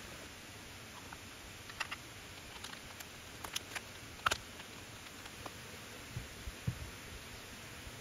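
Scattered small clicks and rustles of a plastic zip-lock bag and a round magnetic hook plate being handled, the sharpest click a little after four seconds. A few soft low thumps follow near the end, over a steady low hiss.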